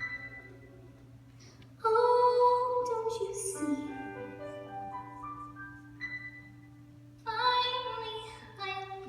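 A woman singing two short, held phrases with vibrato in musical-theatre style, about 2 and 7 seconds in, over soft sustained accompaniment. A steady low hum runs underneath.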